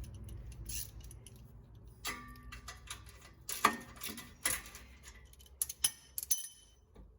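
Metal hand tools and parts clinking and clattering as they are handled: a series of sharp clinks, some ringing briefly, the loudest about three and a half seconds in.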